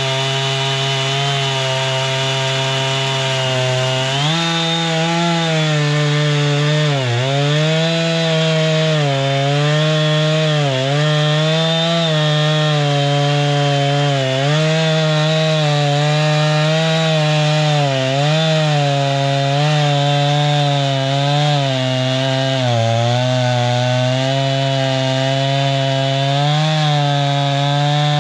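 Portable bandsaw sawmill's gas engine at high speed while the band saw cuts through a log. The pitch steps up about four seconds in, then sags briefly every second or two as the engine bogs under the cutting load.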